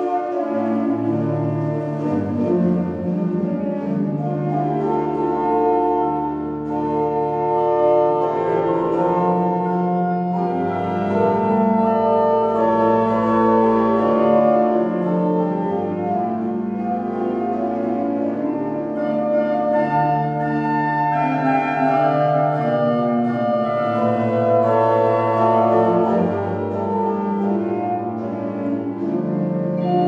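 Rieger pipe organ playing a slow passage of sustained full chords, with held bass notes and harmonies that change every second or two.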